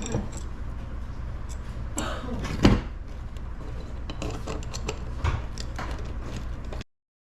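Scattered clinks and knocks of hand tools and metal engine parts being handled, over a steady low hum. The loudest knock comes a little before the middle, and the sound cuts off abruptly near the end.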